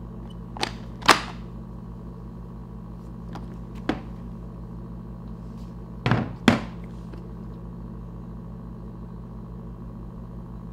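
A few dull thunks of objects being set down or handled on a table: two about a second in, a faint one near four seconds, and two close together around six seconds, over a steady low hum.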